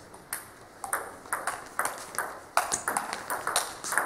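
Table tennis rally: the ball's sharp clicks off the bats and its bounces on the table, in a quick, irregular run of several hits a second.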